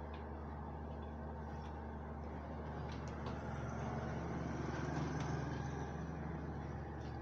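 Steady low rumble of road traffic that swells for a second or two around the middle, with a few faint clicks of aluminium window parts being handled on a workbench.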